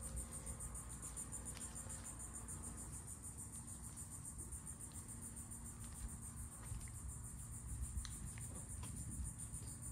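Insects trilling in a steady, high-pitched chorus with a fast even pulse, over a low rumble.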